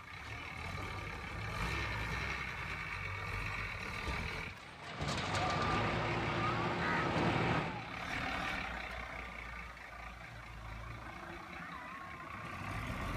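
Heavy diesel machinery engine running steadily, growing louder and harsher for about three seconds in the middle before settling back.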